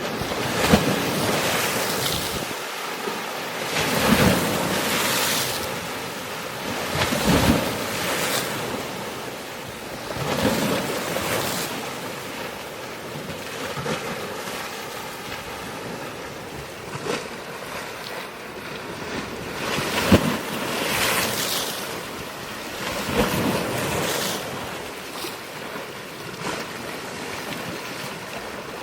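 Sea waves breaking and washing ashore, the surf swelling in surges every few seconds, with wind buffeting the microphone.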